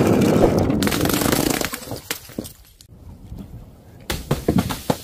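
Glass bottles rolling and clattering down a wooden ramp and breaking, a dense rumbling crash for about the first two seconds. A few sharp cracks follow near the end.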